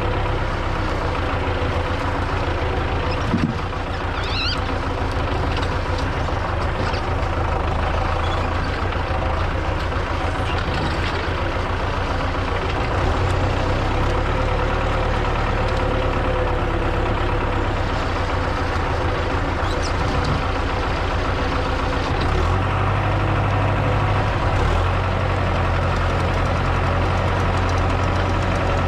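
MTZ-82 tractor's four-cylinder diesel engine running steadily, with a short knock about three seconds in and a change in the engine note about three quarters of the way through.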